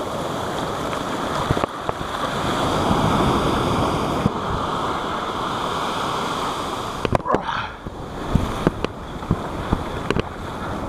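Ocean surf breaking and washing up the beach, a steady rush that swells a little a few seconds in. Several short, sharp clicks and knocks come near the end.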